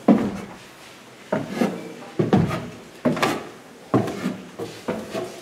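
Footsteps going down steep wooden stairs: heavy thuds on the plank treads every half second to a second.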